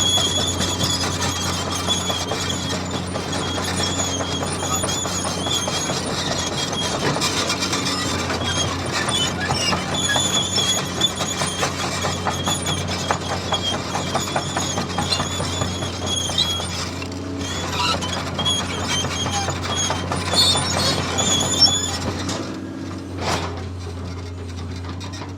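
Radio-controlled toy bulldozer's small electric drive motors running with a high, wavering squealing whine over a low hum. A sharp knock comes about 23 seconds in.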